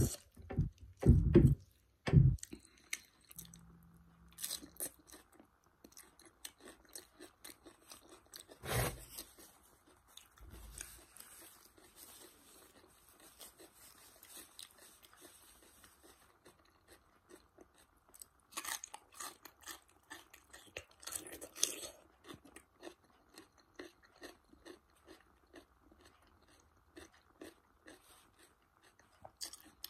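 Close-up crunching and chewing of raw cucumber dipped in curry, in irregular crisp bites, with a few louder thumps in the first couple of seconds and a busier run of crunches about two-thirds of the way through.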